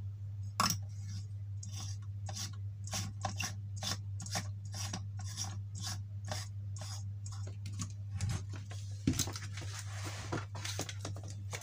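An 11-watt LED bulb being screwed by hand into a plastic lamp socket: a run of short rasping scrapes, about three a second, as the threaded base turns in.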